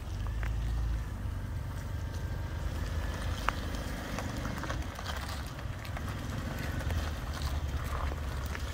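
Volvo XC90 on 33x12.50 off-road tyres rolling slowly at low engine speed, a steady low rumble, with scattered clicks and crunches of the chunky tread over grit and broken pavement.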